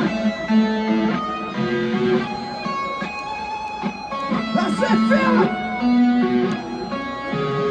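Live rock band playing through a large outdoor PA, with electric guitar holding sustained notes and a stretch of bending, wavering notes about halfway through.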